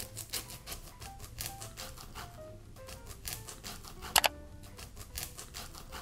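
Small knife slicing kernels off a corn cob into a stainless steel bowl: a quick run of soft cutting clicks, with a sharper double click a little after four seconds in. Light background music plays underneath.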